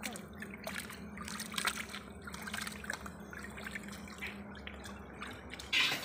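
Water dripping and trickling with small irregular splashes at the edge of a pond as meat is washed in a basin. A louder hiss starts suddenly near the end.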